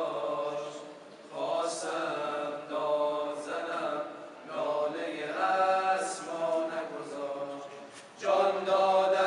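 Male a cappella tawashih group chanting an Arabic devotional nasheed without instruments, in long held phrases with brief pauses for breath about a second in, midway and near the end.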